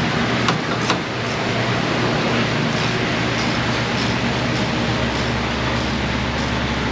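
Steady mechanical hum and hiss, with two light clicks about half a second and a second in.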